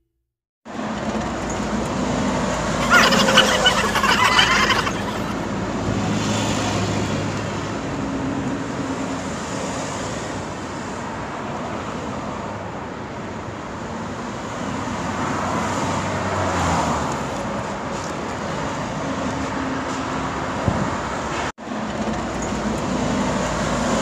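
Street traffic noise: motor vehicles running past in a steady road rumble, with a louder, higher burst about three seconds in and a brief cut-out near the end.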